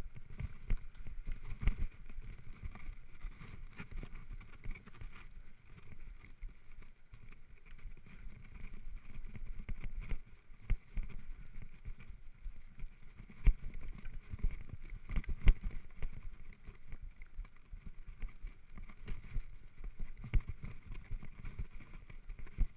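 Scott mountain bike ridden over a leaf-covered dirt trail: tyres running through dry leaves while the bike rattles, with frequent knocks and thumps from roots and bumps. The hardest jolts come about two-thirds of the way through.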